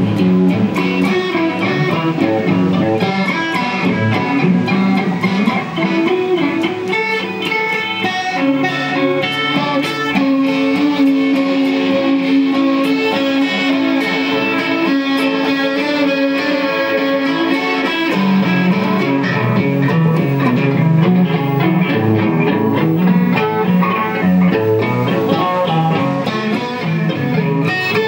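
Instrumental music with busy plucked-string playing, and a long held note through the middle stretch.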